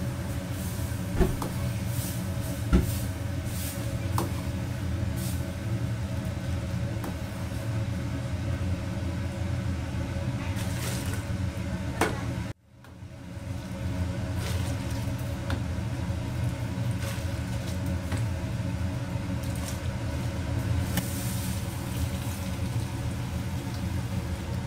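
Steady roar of a commercial wok range, its gas burner lit under a steel wok of simmering sauce, with a few sharp clanks of a metal ladle against the wok. The roar cuts out suddenly about halfway through and swells back within a second or two.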